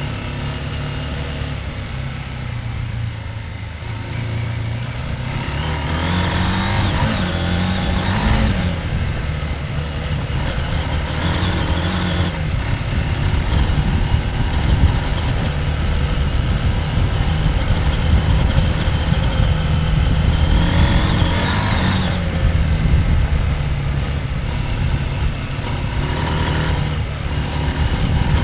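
Husqvarna Norden 901's parallel-twin engine running under way, revving up twice as the throttle opens, about six seconds in and again about twenty seconds in, then easing back.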